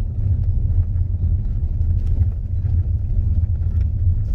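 Steady low rumble of engine and road noise, heard from on board a moving vehicle.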